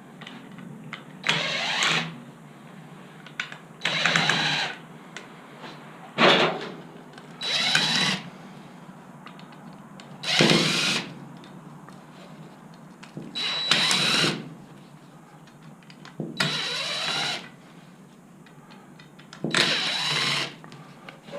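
Power drill/driver running in short bursts, about eight in all, each under a second and two to three seconds apart, some spinning up in pitch, as screws are backed out of aluminum scrap poles.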